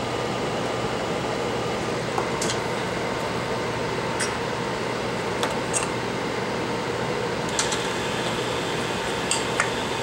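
Steady fan-like hum of bench background noise, with a few small, sharp clicks and taps of tools being handled at a repair bench.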